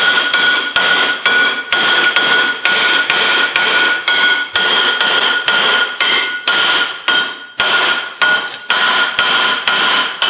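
Big hammer striking a Honda Civic's brake rotor on its hub to knock it loose: repeated blows, about two a second, each with a clear metallic ring. The pitch of the ring is what tells when the rotor has come loose.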